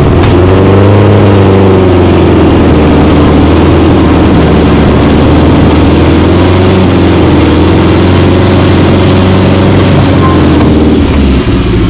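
Off-road 4x4 engine running loud and steady at raised revs while winching. Its steady low hum drops away about eleven seconds in.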